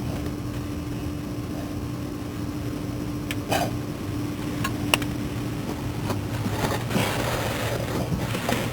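Steady mechanical hum with a few sharp metallic clicks of hand tools or parts about three and a half and five seconds in, followed by a stretch of rough scraping and handling noise.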